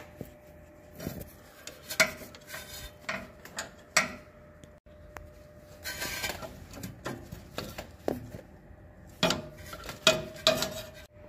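18 mm wrench clinking and tapping on the steel transmission cooler line fittings as they are loosened: irregular sharp metallic clinks, with a short scrape about six seconds in.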